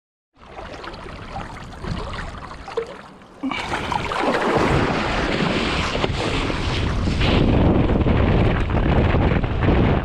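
Wind buffeting the microphone, with water rushing and splashing against the kiteboard as it moves over the sea. The noise starts abruptly and gets much louder about three and a half seconds in.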